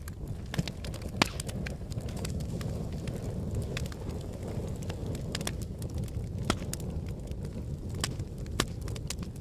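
Wood fire burning in a fireplace: a steady low rumble of flames with sharp crackles and pops scattered throughout, the loudest pop about a second in.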